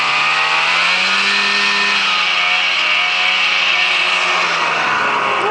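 Snowmobile engine running at a steady high speed just after accelerating, its pitch easing down slightly near the end, with a steady hiss over it.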